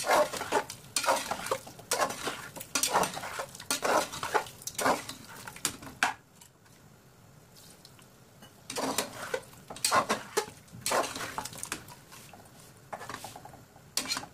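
A metal spatula scraping and knocking against the inside of a pressure cooker pot in quick repeated strokes, stirring and frying mutton in thick masala. The strokes stop for about two seconds around six seconds in, then resume.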